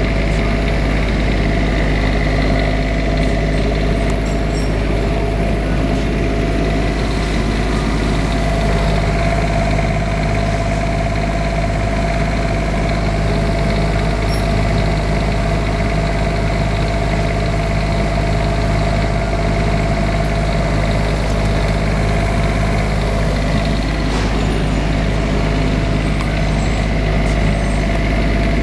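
Onan Quiet Diesel 7500 RV generator, its Kubota diesel engine running at a steady constant speed with an even hum.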